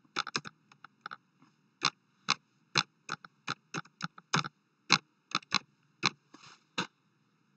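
Typing on a computer keyboard: a string of sharp key clicks at an uneven pace, about three a second, with short pauses between words.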